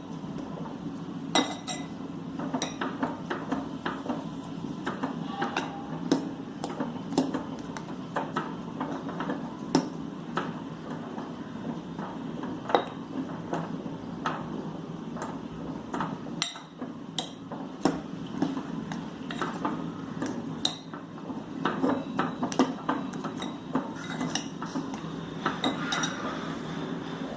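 Metal spoon or ladle stirring in a metal cooking pan, clinking and knocking against its sides at irregular intervals over a steady low hum, as ground coconut-spice paste is mixed into the sambar without letting lumps form.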